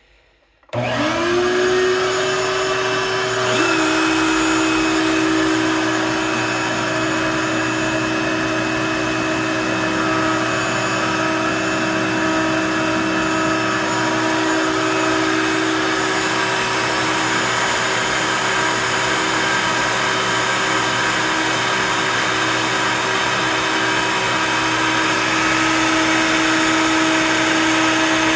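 Shop vacuum switched on about a second in, its motor whining up to speed and then running loud and steady. A few seconds later a second, higher-pitched motor joins it: the router on the Onefinity CNC machine, fitted with a surfacing bit and a vacuum dust boot.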